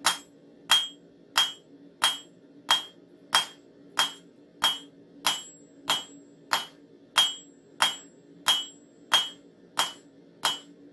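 Hand hammer forging a hot railroad spike on an anvil: a steady run of about seventeen blows, roughly one and a half a second, each with a short metallic ring. The smith is drawing out the spike into a knife blank. A faint steady hum runs underneath.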